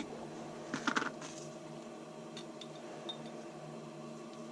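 Light clicks and knocks of small objects being handled, a short cluster about a second in, then a few faint ticks, over a steady low hum.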